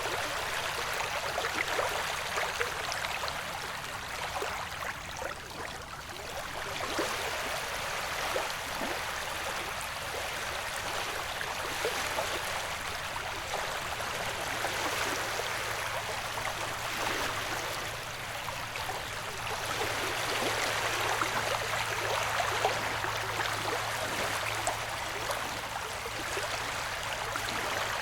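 Ocean waves washing, a steady hiss of surf that swells and eases every few seconds. A faint low steady hum comes in about halfway through.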